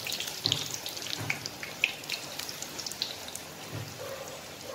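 Puri frying in hot oil in a nonstick pan: a steady sizzle full of sharp crackles and pops, with a few soft low thuds as a slotted spatula presses the dough.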